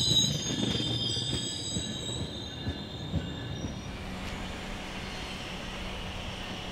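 GO Transit bilevel passenger train passing close, its wheels squealing in several high-pitched tones over a rumble and the knocks of wheels over rail joints. It all fades over the first three seconds, leaving a quieter steady rumble.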